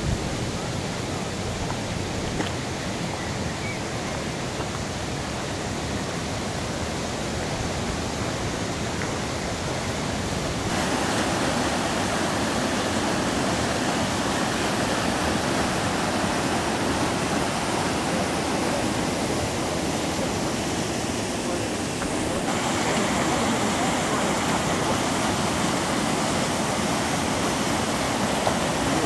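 The Sorgue river rushing over rocks and small cascades, a steady rush of water that gets louder about a third of the way through and again about three-quarters of the way through.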